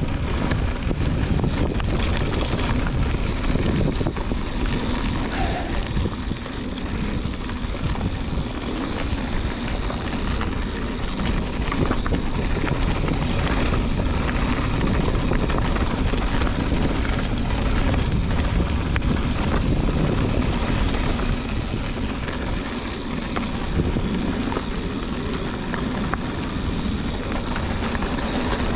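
Wind rushing over the microphone of a Motobecane HAL Boost Eagle mountain bike ridden at speed, with the tyres rolling over rock and gravel and scattered clicks and rattles from the bike.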